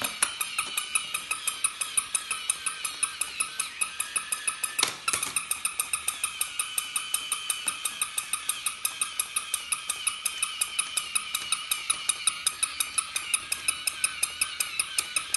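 Battery-operated toy puppy's small electric motor and plastic gears whirring, with a rapid, even clicking from its walking and flipping mechanism. One louder click comes about five seconds in.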